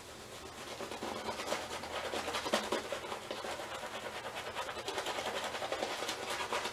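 Shaving brush scrubbing a thick shaving-soap lather onto beard stubble: a fast, steady run of short scratchy strokes that starts about a second in.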